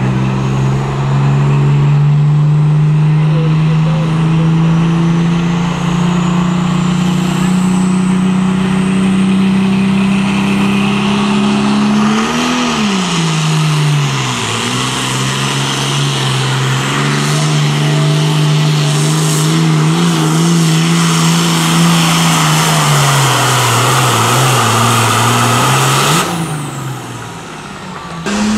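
Diesel engine of a modified pulling tractor running at full power as it drags the weight-transfer sled, black smoke pouring from its stack. The pitch dips and recovers about halfway through, sags again later, and the sound drops away briefly near the end.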